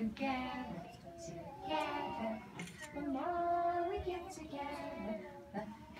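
A group of preschool children singing a song together, with some held notes.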